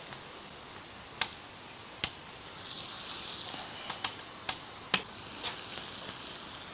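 Chopped vegetables sizzling in hot oil in a cast-iron kazan, the sizzle growing louder partway through. A handful of sharp clinks from the metal ladle against the pot.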